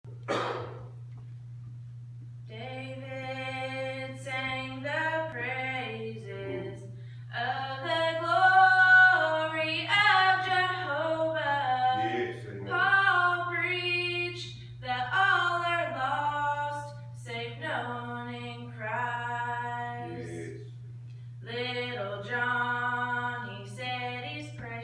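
A woman singing solo into a microphone, in phrases with short pauses between them, over a steady low hum.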